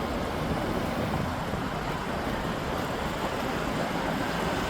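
Steady city road traffic, with cars passing continuously.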